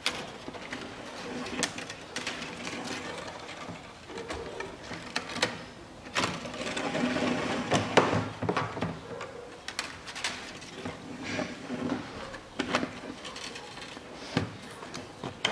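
Wire being threaded and pulled by hand through drilled holes in a cracked plastic car bumper: scraping and rasping against the plastic with scattered sharp clicks, and a longer, louder pull about seven to nine seconds in.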